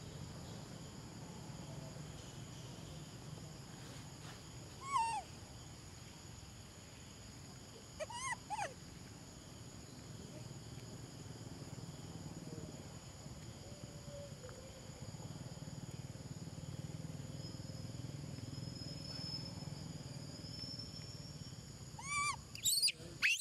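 Young macaques giving short, high-pitched squeals that fall in pitch: one about five seconds in, two around eight seconds, and a quick run of several near the end, over a steady faint outdoor background.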